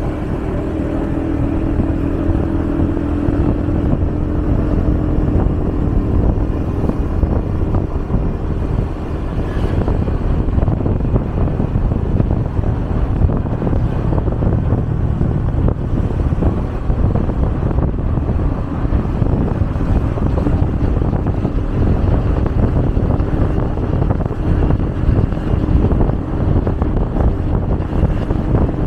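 Road traffic with vehicle engines running and wind buffeting the microphone: a steady low rumble, with an engine drone for the first few seconds.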